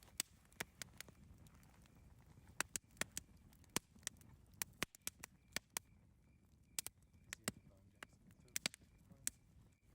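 Campfire crackling: irregular sharp pops and snaps of burning wood, a couple of dozen in a few seconds, over a faint low rumble.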